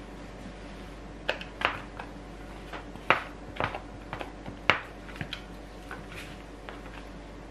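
Plastic dough scraper chopping a small block of butter into cubes, its edge knocking sharply and irregularly on a wooden tabletop about a dozen times.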